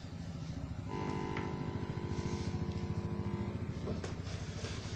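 Audio from the TV being tested on the repaired DD Free Dish set-top box: a steady low buzz with a held musical tone from about a second in until about three and a half seconds.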